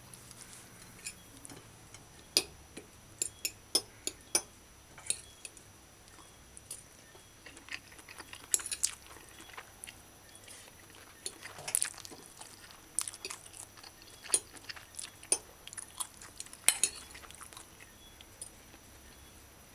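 A metal fork tapping and scraping against a plate of rice and stew in scattered sharp clicks, with quiet chewing between them.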